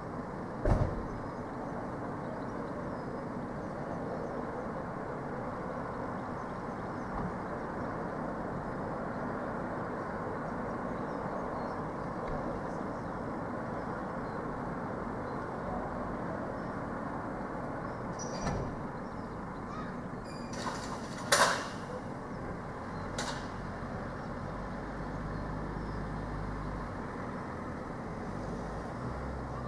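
Goods-yard noise from the loading of a refrigerated home-delivery van: a steady hum with a sharp bang under a second in and a cluster of bangs and clatter about two-thirds through, the loudest of them near the middle of that cluster, from van doors and loading being shut and moved. A low rumble joins near the end.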